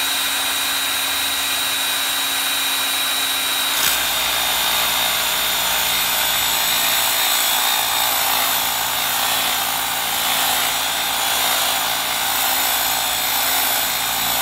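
DeWalt cordless pressure washer's pump motor running steadily while it primes. About four seconds in the sound changes and a lower hum comes in as the pump catches water and starts spraying.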